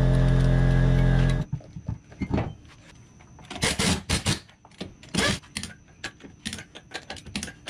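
Heavy-metal background music that cuts off sharply about a second and a half in, followed by scattered knocks and clanks as a wheel and tyre are fitted onto the hub. Near the end comes quick, uneven clicking of a ratchet wrench on the lug nuts.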